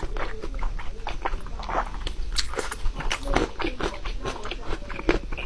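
Close-miked wet chewing and mouth smacking of a person eating large saucy lion's head pork meatballs, in quick, irregular clicks and squelches.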